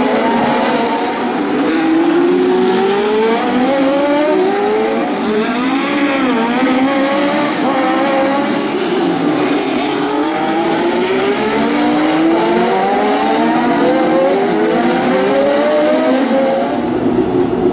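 Several historic racing cars' engines at high revs. Their pitch climbs and drops back again and again as they accelerate and shift up through the gears, the cars overlapping one another.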